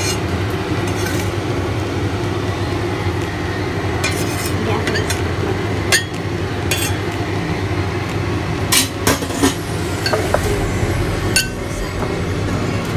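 Knife blade scraping and knocking on a wooden chopping board and clinking against porcelain bowls as cut ingredients are moved into a bowl. The clinks are sharp and scattered: a strong one about six seconds in, a quick cluster of three around nine seconds. A steady background hum runs underneath.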